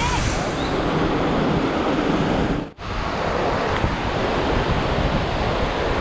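Steady rushing of a tall waterfall, heard close to its base with spray and wind on the microphone. The sound drops out for a moment near the middle, then picks up again.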